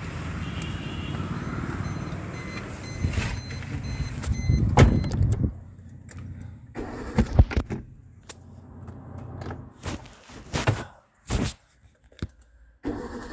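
A motor vehicle running with a steady low rumble, which fades about five seconds in. After that come a series of sharp knocks and thuds over a quieter background.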